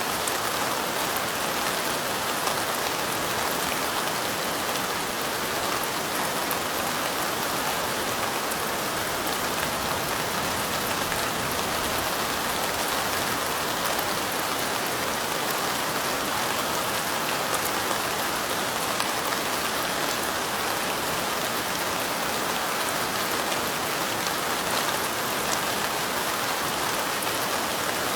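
Steady rain falling, an even hiss of many drops pattering on a surface with no change in strength.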